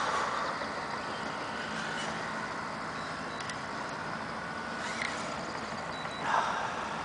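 A hooked muskie swirling at the surface beside the boat: a brief splash fading at the very start and another near the end, over a steady low hum.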